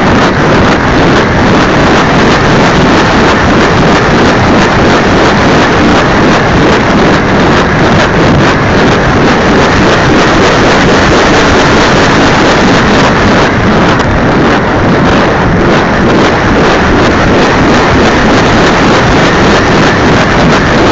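RC trainer airplane's motor and propeller running in flight, picked up by a cheap keychain camera mounted on the cowl, with heavy wind buffeting the microphone. The result is a loud, steady rushing roar with no clear engine note.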